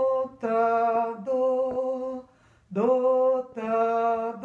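A woman singing solfège unaccompanied: two short phrases of 'do, ti, do', each note held steady, the middle note a step lower, with a brief pause between the phrases.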